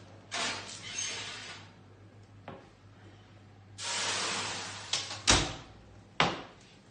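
A baking tray scraped onto an oven rack, then a hiss as boiling water hits a hot tray in the bottom of the oven to make steam, and the oven door shut with a sharp bang among a few knocks.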